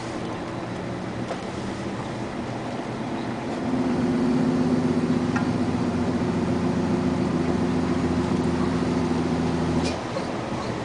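Vehicle engine running steadily while driving. A louder, steady multi-tone hum sets in about four seconds in and cuts off sharply near the end.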